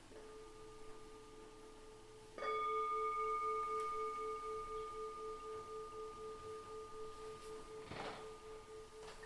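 A faint steady tone, then about two and a half seconds in a struck, bell-like tone rings out and slowly fades with a slow pulsing waver. A soft knock comes near the end.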